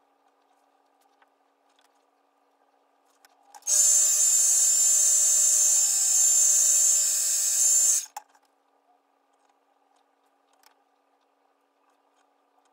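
Handheld hair blow dryer switched on and running for about four seconds with a steady airy rush and a high whine, then switched off abruptly.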